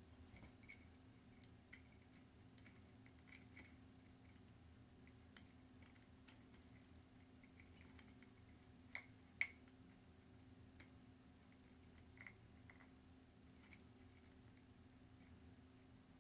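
Faint, scattered small clicks and taps of Christmas-light bulbs and their wire against a glass bottle as the lights are fed in and handled, with two louder clicks about nine seconds in.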